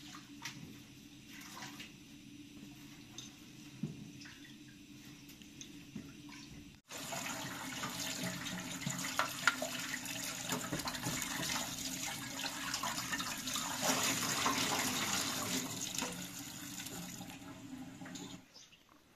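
Water running from a tap in a steady splashing stream, starting abruptly about seven seconds in and stopping shortly before the end. Before it there are only faint clicks and knocks of handling.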